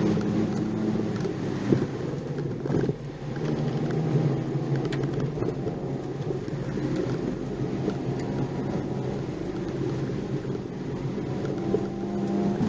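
Nissan March 12SR's 1.2-litre four-cylinder engine running under load, heard from inside the car over tyre and road noise, its pitch rising and falling as the car is driven. A few sharp knocks from the body or suspension, about two and three seconds in.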